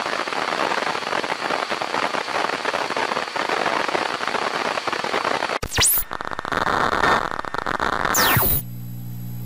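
Synthesized intro sound effects: a dense hiss like radio static for about five and a half seconds, cut short by a falling sweep. After more hiss a second falling sweep leads into a steady low synth hum.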